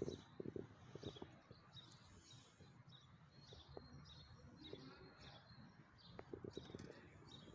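Faint bird chirps repeating over a quiet background hiss, with a few soft ticks near the start and near the end.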